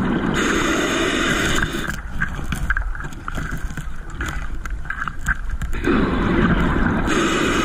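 Scuba diver breathing through a regulator underwater: a long rush of exhaled bubbles, then a quieter stretch, then a second bubble rush near the end.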